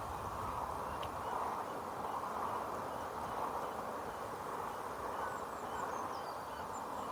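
Steady wind noise with a low rumble on the microphone. Faint bird chirps run through it, and a quick falling run of high chirps comes near the end.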